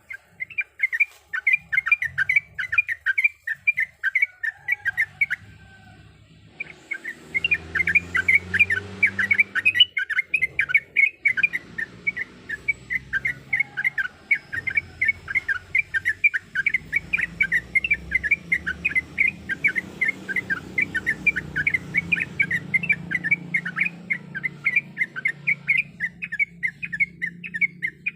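Yellow-vented bulbul singing a fast run of short, bubbly chirping notes, several a second, with a short break about six seconds in.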